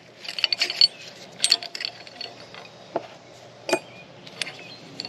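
Light metallic clinks and taps of a pulley puller's collar, sleeve and half-moon pieces being fitted and handled on a steel power steering pump pulley. The clinks come irregularly, several in close succession around the first second and a few more spaced out after.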